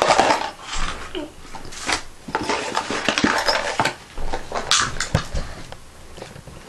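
A toy's plastic blister pack and cardboard backing card being pulled apart and opened by hand: irregular crinkling plastic and sharp snaps, busiest in the first few seconds and thinning out near the end.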